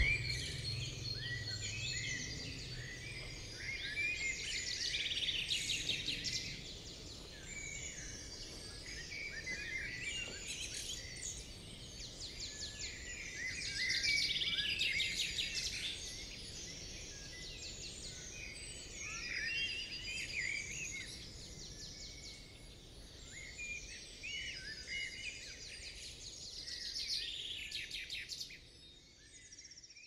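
Several songbirds singing and calling together, with short chirps and rapid trills coming in bouts every few seconds. A low rumble, the dying echo of a loud bang just before, fades in the first second or so, and the birdsong cuts off suddenly near the end.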